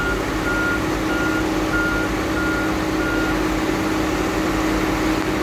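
A backup alarm beeping a single steady tone, about one and a half beeps a second, stopping about three seconds in, over the steady running of a heavy machine's engine.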